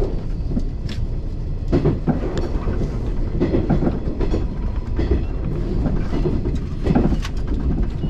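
JR 381 series limited express train running along the track, heard from inside the driver's cab: a steady low rumble broken by irregular clacks and knocks as the wheels pass over rail joints.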